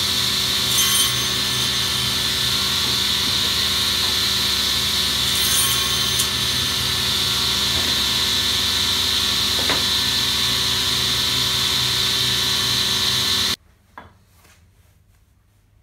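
Sliding table panel saw running steadily, with brief high-pitched changes about a second in and around six seconds as the blade cuts the wooden workpiece for a tenon. The machine noise stops abruptly near the end, leaving a few faint knocks.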